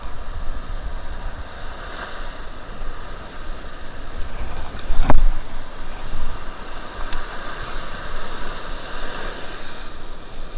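Surf washing over the sand and wind buffeting the microphone, with one sharp knock about five seconds in.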